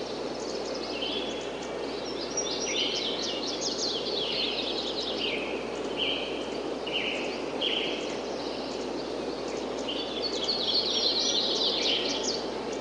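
Several small birds chirping and trilling in quick, overlapping calls over a steady rush of wind. The calls thicken about two seconds in and again near the end.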